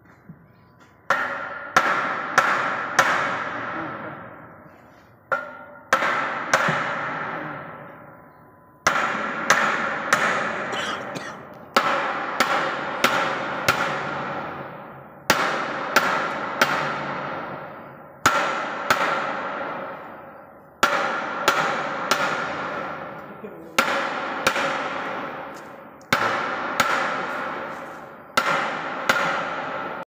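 Hammer blows on the drive end of a large 125 kW electric motor to loosen its end cover, the metal ringing after each blow. The blows come in quick groups of two to four, roughly every three seconds, each group ringing out for a couple of seconds.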